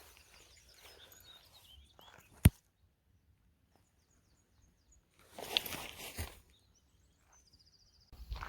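Quiet outdoor background with faint high chirps. A single sharp click or knock about two and a half seconds in, then a short burst of rustling or handling noise a little past the middle.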